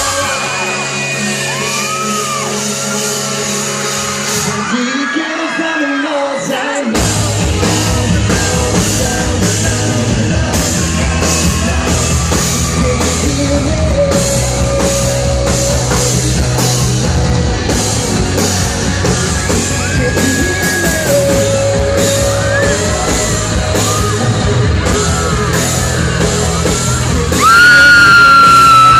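A live pop band playing with no vocals: a held synth chord, then a steady drum and bass beat that kicks in about seven seconds in. Fans scream over it, with one loud scream close by near the end.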